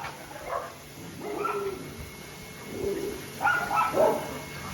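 Dogs barking and whining in short, scattered calls, with the loudest cluster a little after three seconds in.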